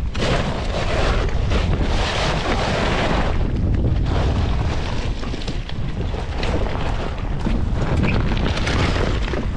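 Wind buffeting the microphone on a kayak in rough open sea: a loud, steady rumble with a rushing hiss, strongest in the first three seconds.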